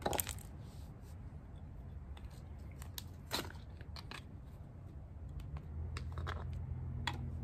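A small knife and a coconut tool prying and scraping the flesh out of a coconut shell: scattered short scrapes and cracks at irregular intervals, the sharpest a little past the middle.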